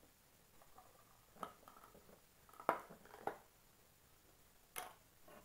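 Small plastic dahi (yogurt) cup being opened by hand: a few sharp plastic clicks and crinkles as its snap-on lid is pried off, the loudest near the middle.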